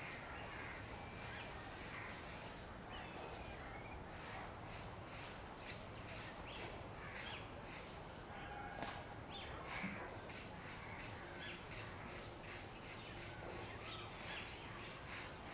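Garden birdsong ambience: crows cawing and small birds chirping over a steady hiss, with soft clicks and crackles throughout and one sharper click about nine seconds in.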